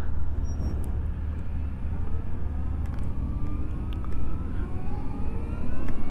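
LiveWire One electric motorcycle's drive motor whining under acceleration in sport mode, several tones climbing steadily in pitch from about two seconds in. Heavy wind rumble on the microphone sits underneath.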